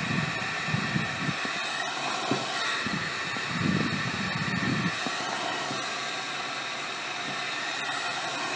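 Electric heat gun blowing steadily, with a hiss and a whine that hold steady throughout. Over the first half or so come irregular low rubs and bumps as fingers press the vinyl mesh film down.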